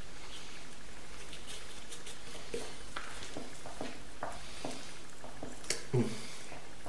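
Hands working raw chicken skin: soft wet squishing and faint scattered ticks as spice rub is pushed under the skin of a whole raw chicken, more of them in the second half, over a steady low hum.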